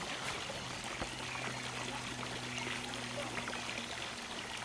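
Steady background hiss with a faint low hum under it; no distinct event stands out.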